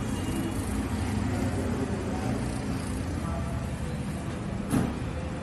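A steady low rumble of background noise, with one short, sharp knock near the end.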